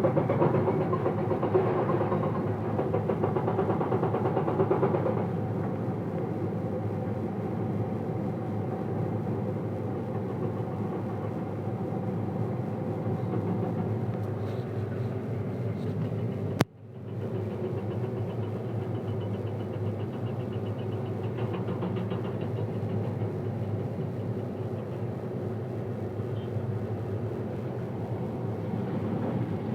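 Komatsu excavator's diesel engine running steadily, louder for the first five seconds or so. About two-thirds of the way through, the sound cuts out abruptly for a moment.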